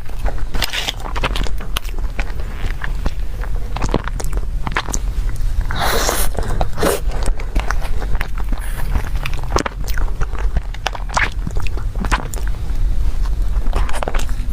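Close-miked ASMR eating sounds of a matcha cheese box dessert: repeated bites and chewing with many small wet mouth clicks, one louder, longer bite about six seconds in, over a steady low hum.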